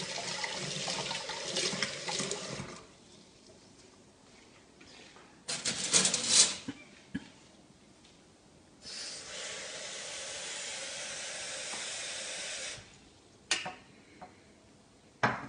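Kitchen tap running into a stainless steel sink while hands are washed. The water stops about two and a half seconds in, comes back in a short loud rush around six seconds, then runs steadily again for about four seconds. Two sharp knocks follow near the end.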